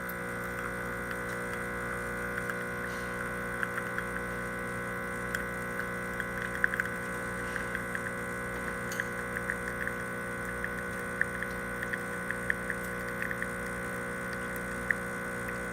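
Expobar Office E61 espresso machine's vibratory pump running steadily while pulling a shot, with scattered light ticks throughout.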